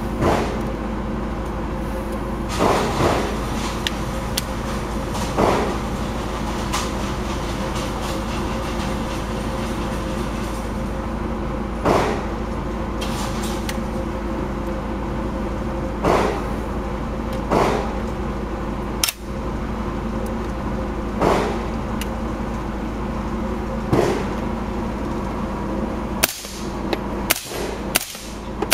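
Gunshots echoing in an indoor shooting range over a steady background hum: single shots every few seconds, then a quicker run of about five sharp shots near the end.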